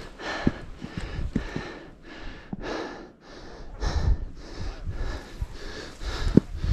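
A climber breathing hard close to the microphone, quick noisy breaths about once a second, under the exertion of climbing at high altitude.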